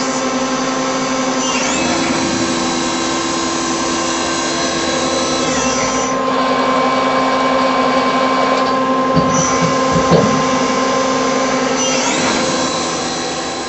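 Star SV-20 CNC Swiss-type lathe running: a steady motor whine with several tones that shift in pitch a few times, with short gliding sweeps about two seconds in and again near the end as the machine's motors change speed.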